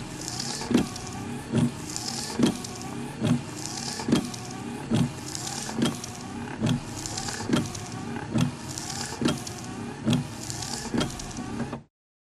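A rhythmic beat: a low thump a little more than once a second, with a hissing swish on every other thump and wavering tones behind. It starts and cuts off abruptly.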